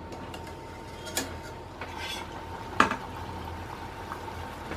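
Steel spatula clinking against a black enamelled kadai twice, the second clink louder, as a chakli is slid into hot oil that fries with a low, steady hiss.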